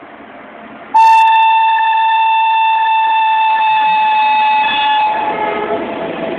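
WAP-7 electric locomotive sounding its horn in one long steady blast of about four seconds, starting suddenly about a second in, as it rolls slowly past. After the horn stops, the passenger coaches rumble past.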